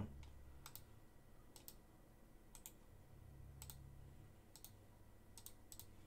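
Faint, sparse clicks of a computer mouse and keyboard, about one a second and sometimes in pairs, over a low room hum.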